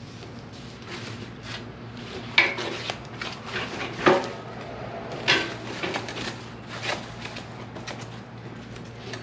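Metal clinks and knocks as a wire cooking grate and parts are handled inside a steel drum smoker, with packing paper rustling. Several sharper knocks stand out, the loudest about two and a half and four seconds in.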